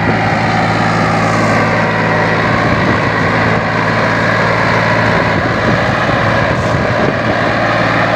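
Diesel farm tractor engine running steadily at an even speed under load, hauling a trolley through wet, muddy ground.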